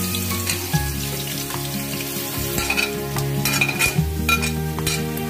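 Sliced onions hitting hot oil in a metal cooking pot and sizzling, with a spoon and the edge of a plate scraping and clinking against the pot as the onions are pushed in. Background music with low held notes plays underneath.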